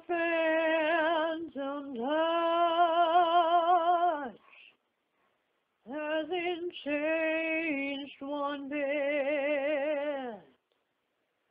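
A woman singing alone, unaccompanied, in two slow phrases, 'Your phantom touch' and 'Hasn't changed one bit', with vibrato on the held notes and a pause of silence between the phrases.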